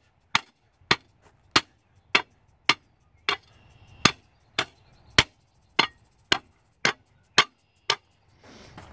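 A patio block struck again and again to tamp it down into its pea-gravel bed. The blows are sharp and evenly spaced, a little under two a second.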